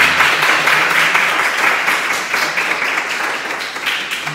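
A small roomful of people applauding steadily, the clapping tapering off near the end.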